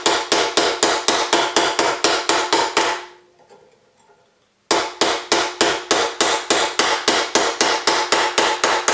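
A white-headed forming hammer pounds a reticulated silver strip on a steel anticlastic stake in quick, even blows, about four a second, each with a short metallic ring. Around the middle the blows stop for about a second and a half, then resume at the same pace. The hammering curves the middle of the strip into the anticlastic saddle shape of a cuff bracelet.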